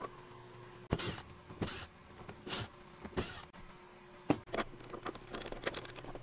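Workshop handling sounds from wood-lathe fittings: four short rasping scrapes, then a sharp click and a run of light metal clicks and clinks as a metal chuck is fitted to the lathe spindle.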